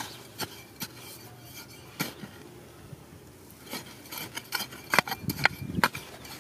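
Small metal hand shovel digging into dry, stony soil: sharp scrapes and clinks of the blade against dirt and pebbles, few at first and coming thicker and louder in the second half.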